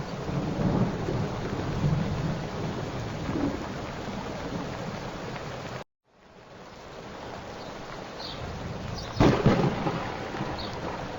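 Steady rain with low rumbles of thunder. The sound cuts out abruptly a little before six seconds in and fades back up, and a much louder burst of thunder comes about nine seconds in.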